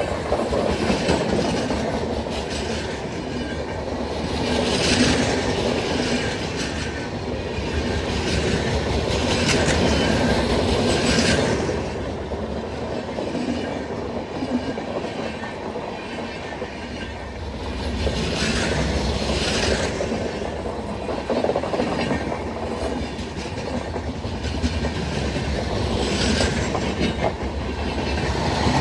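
Kulik Express passenger train running past, its wheels clattering steadily over the rail joints. Brighter swells of wheel-on-rail noise come every few seconds.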